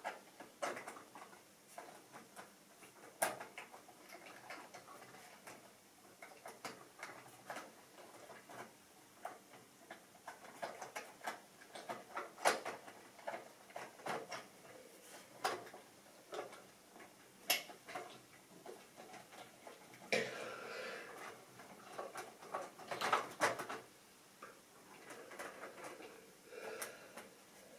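Plastic model railway locomotives and wagons being handled on the track: irregular light clicks and taps, with a short rustling scrape about twenty seconds in.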